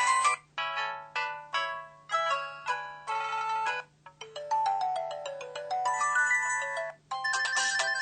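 Samsung SPH-V5100 mobile phone playing polyphonic ringtone melodies through its small speaker, thin and without bass. One tune breaks off and a different one starts about four seconds in, and again near the end.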